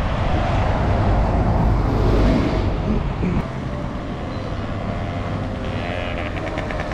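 Road traffic passing on a city street, with wind rumbling on the microphone.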